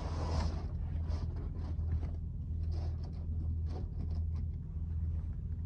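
Fabric privacy curtains in a truck cab being pulled and tucked across the windscreen: soft rustling and sliding of cloth over a steady low hum.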